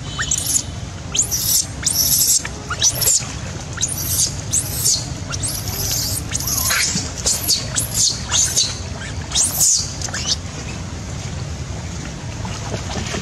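Newborn macaque giving shrill, high-pitched distress squeals, a dozen or so short cries in quick succession, which stop about ten seconds in.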